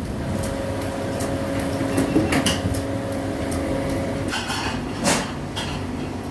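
Metal parts clinking and knocking as they are handled, with a steady hum underneath that stops about two-thirds of the way through; one louder knock near the end.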